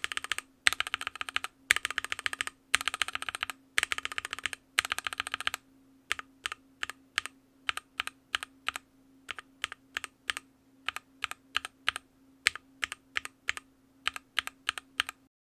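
Typing test of a Drop Carina mechanical keyboard fitted with Momoka Frog linear switches: fast runs of keystrokes for about the first five seconds, then separate keypresses at roughly three a second.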